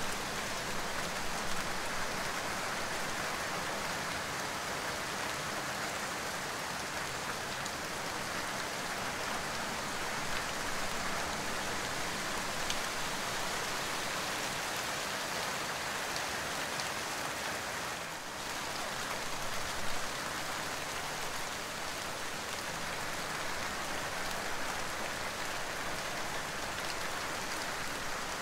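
Steady rain falling: an even, unbroken hiss of rain noise with no music.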